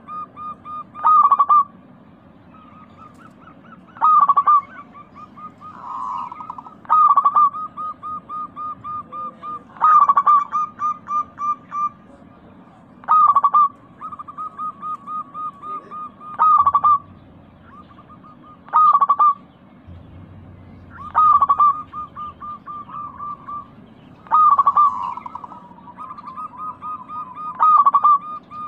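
Zebra dove (local perkutut) song: each phrase opens with a loud note followed by a quick run of even, softer coos at about four a second. The phrase repeats roughly every three seconds.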